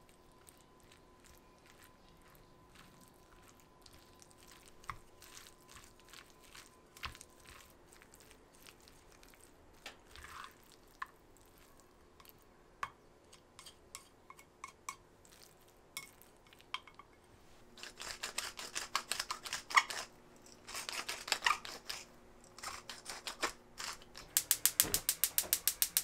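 Chopsticks mixing a mayonnaise-dressed salad in an enamel bowl: light scattered clicks of the chopsticks against the bowl, growing busier and louder in the second half as the stirring picks up. Near the end, a gas hob's igniter clicks rapidly, about eight ticks a second, as the burner is lit.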